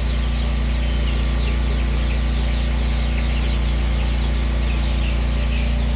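A flock of broiler chicks peeping continuously over a loud, steady low mechanical hum.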